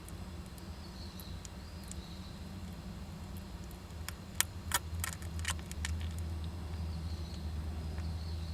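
Quick run of sharp clicks and scratches about four to six seconds in, from Japanese giant flying squirrels moving about inside a wooden nest box, over a steady low hum.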